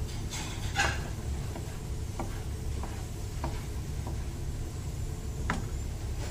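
Kitchen knife cutting a tomato, its blade tapping the cutting board a few times at irregular intervals, over a steady low hum.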